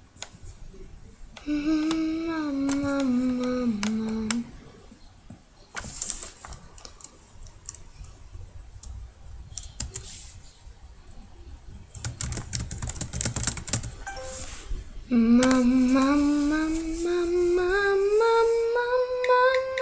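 A girl humming. About a second in she holds a low note that slides down for roughly three seconds. Clicks and taps from handling a mobile phone follow, thickest in the middle. Near the end she hums a long note that rises slowly in pitch.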